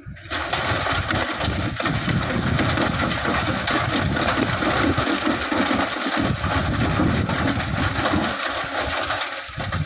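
Diesel engine of an excavator running steadily at working speed with a loud hiss over it. It starts abruptly just after the beginning and cuts off near the end.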